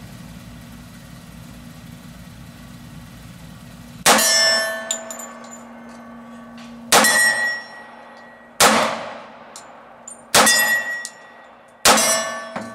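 Five shots from a Llama Minimax .45 ACP pistol, fired slowly at uneven gaps of about one and a half to three seconds. Each shot is followed by a steel target ringing as it is hit. The pistol feeds and cycles every round without a malfunction.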